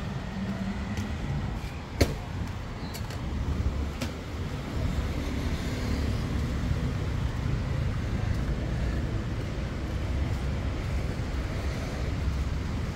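Road traffic noise: a steady low rumble of passing cars and motorbikes, with one sharp click about two seconds in.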